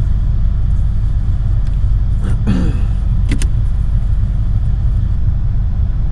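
Steady low rumble inside a van's cabin, the sound of the van running on the road.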